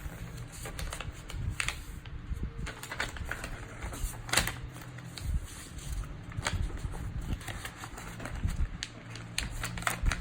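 A sheet of paper being folded and creased by hand into the wings of a paper airplane: irregular crackles and sharp taps, with a few louder ones.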